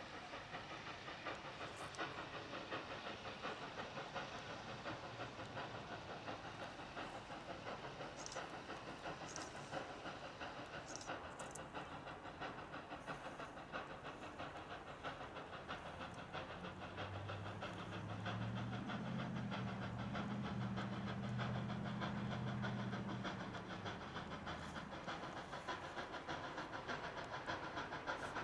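Central Railroad of New Jersey No. 113, an 0-6-0 steam locomotive, approaching and working steam with a continuous hiss. About two-thirds of the way through, a long, low, steady tone sounds for about six seconds.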